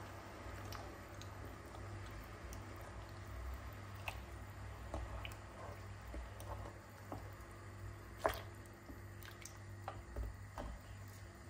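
Wooden spoon stirring banana chunks and peels in sugar syrup in a pot: soft wet squishing with scattered light knocks of the spoon against the pot, the sharpest about eight seconds in, over a low steady hum.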